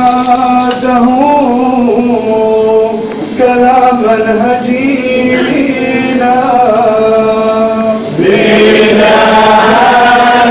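Church choir and congregation chanting a slow, melismatic Good Friday hymn of the burial-of-the-cross service, mostly in unison on long held notes. About eight seconds in, more voices come in and the singing grows fuller and louder.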